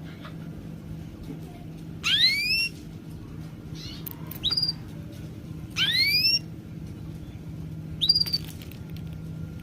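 A bird repeating loud whistled calls that sweep upward. Long rising whistles alternate with shorter ones that rise and then level off, one about every two seconds, four in all, over a faint steady low hum.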